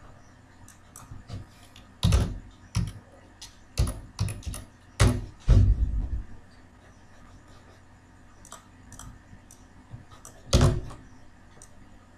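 Computer keyboard being typed on in irregular clicks and knocks: a cluster of keystrokes from about two to six seconds in, then one more loud key knock near the end.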